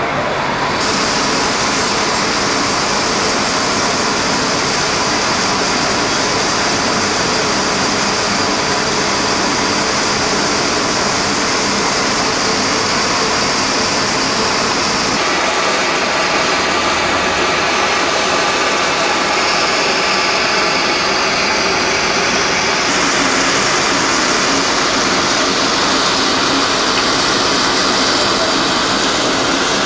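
Steady machinery noise with a faint constant whine, from a dry-bulk loading station running while dolomite is loaded through a heavy-duty telescopic loading chute.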